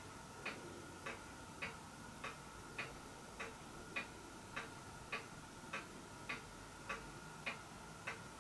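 Faint, even ticking of a clock, a little under two ticks a second, over a faint steady tone.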